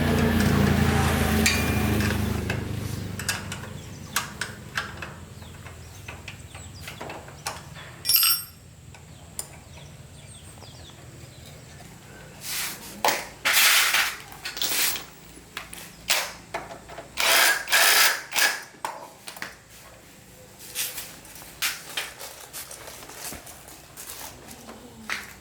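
A small motorbike engine running, fading away over the first few seconds. Then scattered clicks and knocks of tools being handled, with a cluster of short noisy bursts about halfway through.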